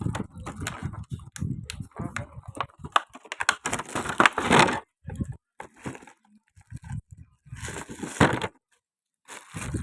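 Packaging being handled and unpacked: irregular clicks and crinkling rustles, with two longer, louder bursts of rustling about four and eight seconds in.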